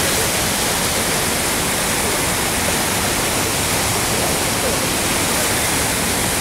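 Iguazu Falls at close range: a steady, even rush of heavy falling water.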